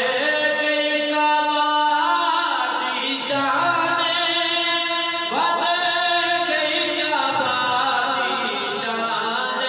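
A man's voice chanting a devotional manqabat in long held notes, sliding up into new phrases about three and five seconds in.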